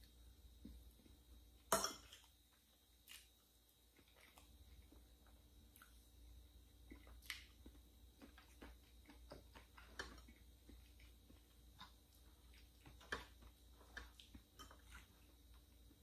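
Soft, close-miked chewing of chocolate cake, with scattered sharp clicks of a fork on a plate; the loudest click comes about two seconds in.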